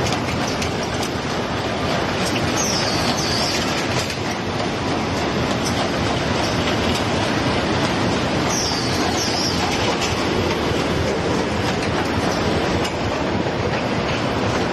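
EX-2400 automatic carton folding and gluing machine running: a steady, loud clatter of its feed belts and rollers as corrugated cartons pass through. A pair of short, falling high-pitched squeals cuts in twice, about three seconds in and about nine seconds in.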